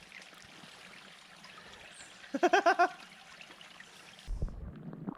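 A steady hiss of running water, with a quick run of about five pitched notes a little past two seconds in. The water sound cuts off abruptly about four seconds in and a low rumble follows.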